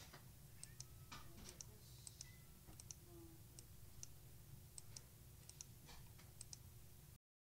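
Faint, irregular light clicking, a few clicks a second, over a low steady hum; the sound cuts off to silence just before the end.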